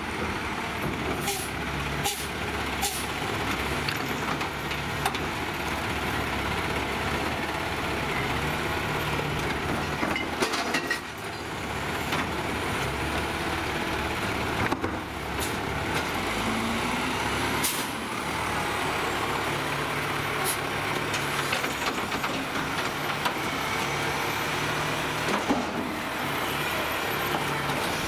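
Heil Durapack SST automated side-loader garbage truck working a cart at the curb: its engine runs steadily under air-brake hisses and several sharp clanks as the mechanical arm grabs, lifts and dumps the cart. The engine picks up briefly around halfway through.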